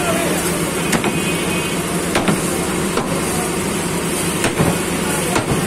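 Butcher's cleaver chopping beef on a thick round wooden chopping block, sharp uneven chops about once a second, sometimes two in quick succession, over a steady background din.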